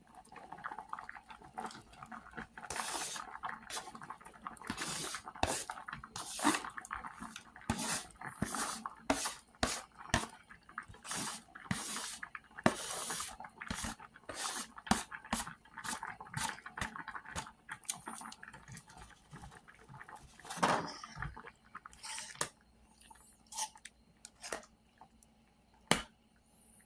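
Sliced ham being scraped off a pan into a pot of boiling soup with a metal utensil: irregular clinks and scrapes of metal on cookware, with splashing of the broth. The clatter thins out near the end.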